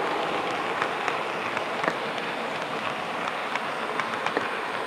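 Model train running along the track: a steady rumble of wheels and motor with frequent irregular light clicks.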